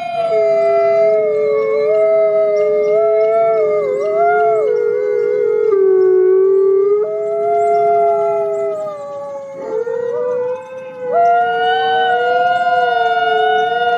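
Two wolves howling together in long, overlapping howls, one voice lower and steady, the other higher and wavering. Both break off briefly about ten seconds in, then pick up again.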